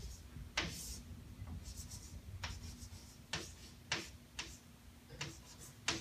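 Chalk writing on a chalkboard: about seven sharp, irregular taps as the chalk strikes the board, with short scratchy strokes between them.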